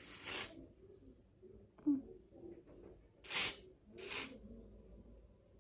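Aerosol lace glue spray hissing in three short bursts: one at the start, then two in quick succession about three and a half seconds in.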